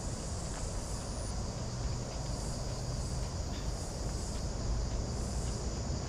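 Insects in Australian bushland buzzing in a steady, high, even drone, with a higher chirp pulsing about twice a second, over a low rumble. Faint footsteps tick along every half second or so.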